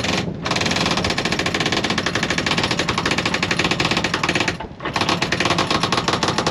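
Rapid ratcheting clicks from the sailboat's halyard hardware as the mainsail halyard is hauled in by hand, hoisting the main to its first reef. The clicking runs in two spells with a short break about four and a half seconds in.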